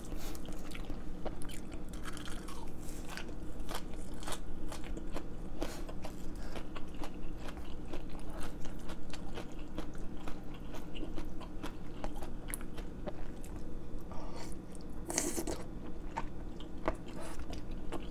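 Close-up eating sounds: a person chewing and biting noodle soup with braised chicken and fresh basil, full of small wet clicks and crunches, with a brief louder noisy patch about fifteen seconds in. A steady low hum runs underneath.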